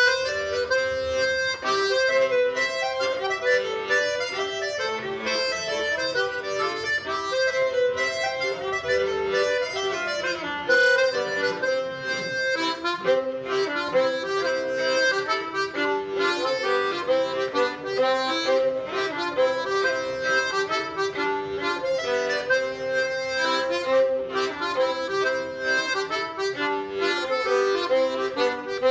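Traditional Breton dance music playing continuously, a reedy melody over a steady dance rhythm.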